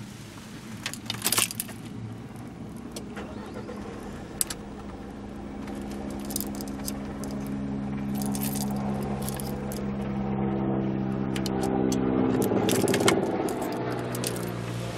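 A few sharp clicks and a short rattle in the first seconds, then a steady engine hum that grows louder from about six seconds in, is loudest shortly before the end and eases off.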